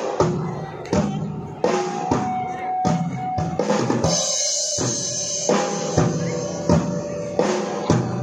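Live rock band playing: drum kit keeping a steady beat under electric guitars, bass and keyboard. About halfway through, the low end drops out for about a second before the beat comes back in.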